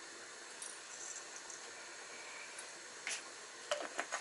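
Black peppercorns being dropped into glass jars: a few sharp ticks of hard little grains and glass about three seconds in, over a steady faint hiss.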